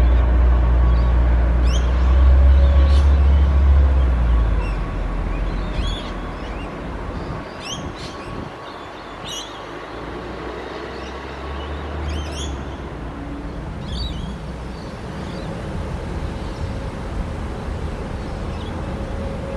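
A Queensland Rail track machine's engine rumbling as it pulls away along the line, fading after about five seconds, with birds chirping in short calls throughout. A lower rumble builds again in the second half as a Pacific National locomotive approaches.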